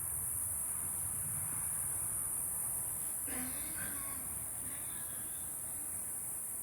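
Steady high-pitched drone of an insect chorus, with a brief murmur of a voice about halfway through.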